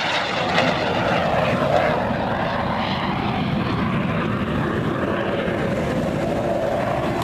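Aermacchi MB-339 jet trainer's turbojet passing close overhead, a steady loud rushing jet noise. After about two and a half seconds the hiss dulls as the jet pulls away.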